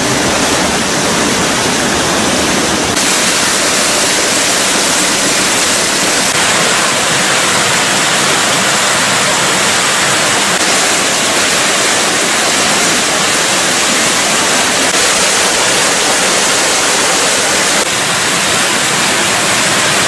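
A small waterfall sheeting down a rock face, a steady loud rush of water.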